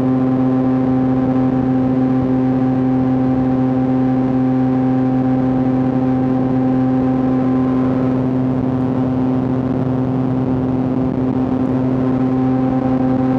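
2026 Yamaha R9's 890 cc inline-three engine and exhaust running at steady revs while cruising. The pitch holds nearly constant, with a slight softening in the middle before it picks back up.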